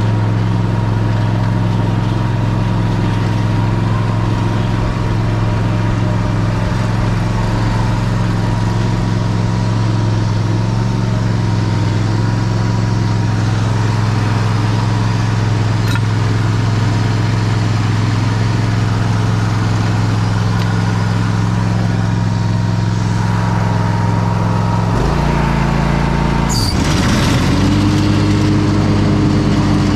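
Gravely mower's engine running steadily. About 25 seconds in, its pitch drops and shifts with a brief rough rasp, then it settles into a higher, steady note.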